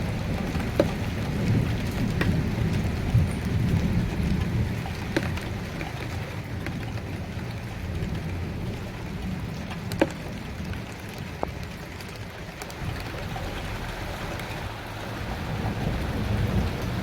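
Rain falling steadily with a few sharp drop taps close by, over a low rumble that eases off around the middle and builds again near the end.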